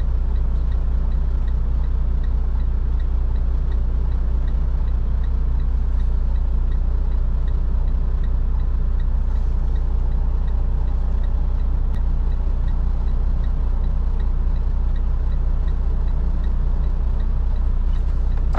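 Semi truck's diesel engine idling steadily, heard from inside the cab as a constant low hum, with a faint regular ticking over it.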